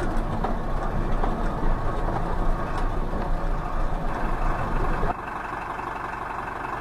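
Bus engine running and body rattling, with scattered knocks, as it drives over a rough dirt track, heard from inside the cabin. About five seconds in it cuts abruptly to a quieter, steady engine idle.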